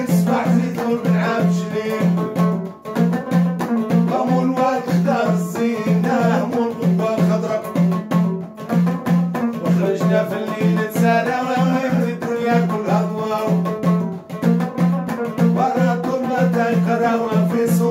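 A man singing a Moroccan folk song, accompanied by a plucked long-necked lute, over a steady low beat about three times a second.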